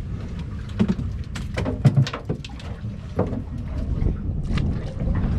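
A boat's engine running steadily with a low rumble, under a run of irregular sharp knocks and clatter on deck.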